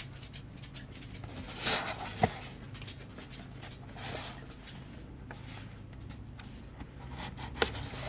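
Faint rustling and a few light clicks of a trading-card box and its packaging being handled, over a low steady hum.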